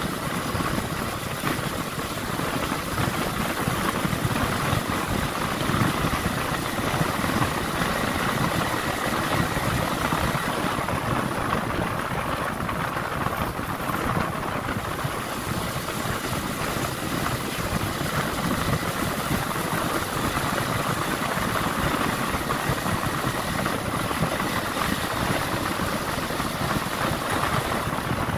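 Motorcycle running steadily on the move, its engine mixed with a constant rush of wind and road noise.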